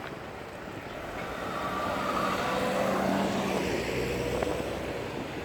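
An engine passing by, growing louder to a peak around the middle and then fading.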